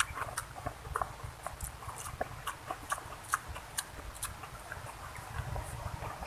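A person eating close to the microphone: chewing with quick, irregular mouth clicks and smacks.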